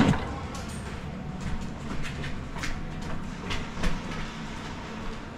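Footsteps going down a concrete stairwell: scattered, irregular knocks over a steady low rumble, with one sharp knock at the very start.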